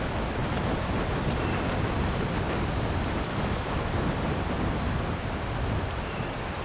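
Steady rushing outdoor background noise, with a few faint high-pitched chirps in the first second and a half.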